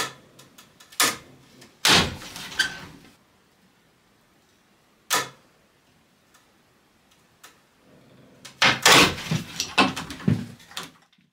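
A series of sharp wooden knocks and clatters from a glue-joint breaking-test rig, a plywood lever arm on a glued test block, as it is loaded and handled. A few single knocks come first, and a dense burst of knocking and clattering comes near the end.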